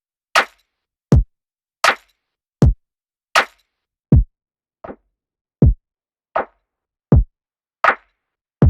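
Bare drum-machine beat from a lo-fi hip hop track, with no other instruments. Deep kick hits alternate with sharper snare-like hits, one about every three-quarters of a second at a slow, steady tempo. One hit about five seconds in is much softer.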